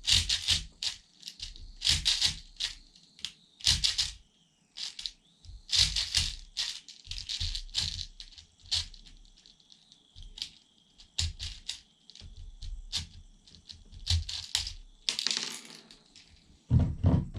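Airsoft BBs rattling and clicking in a speed loader as they are pushed into the BB holes of an Avatar gas-powered airsoft grenade, in irregular bursts of clicks.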